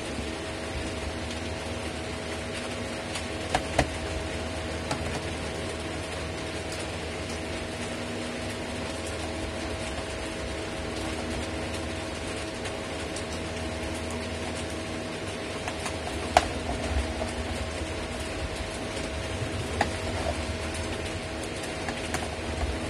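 Electric fan running steadily at full blast, a constant hum with a few sharp clicks over it from a small screwdriver undoing the screws on the underside of a plastic laptop case.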